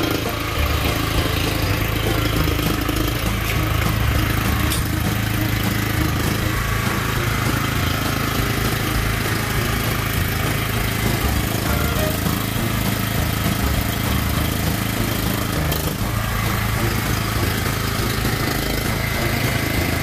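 Ridgid portable generator's small engine running steadily at a constant speed inside its aluminium enclosure.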